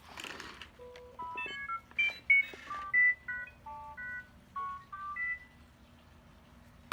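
A droid's electronic beeping: a rapid string of short, pure bleeps jumping up and down in pitch like robot chatter, lasting about four seconds after a brief rustle.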